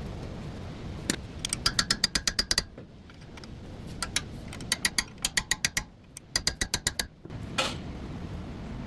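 Hand ratchet wrench clicking in three quick runs of about eight clicks a second as a bolt is turned, with a couple of single clicks between.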